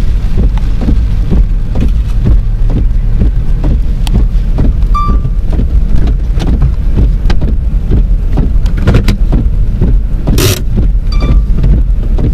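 Wind and rain on a storm-chase vehicle during a tornado: a loud, steady low rumble with many small taps throughout. Two short beeps, about five seconds in and again near the end, and a brief burst of hiss at about ten seconds.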